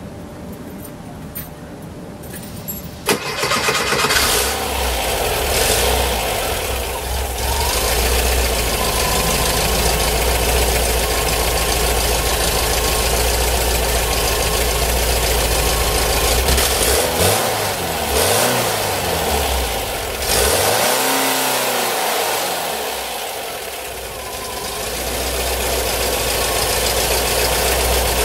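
A 1972 VW 411's 1.8-litre air-cooled Type 4 flat-four, fuel-injected by a Microsquirt ECU, fires up about three seconds in, already warm because it has no idle air control valve yet, and runs at a steady idle. Past the middle the revs rise and fall a few times, then it settles back to idle.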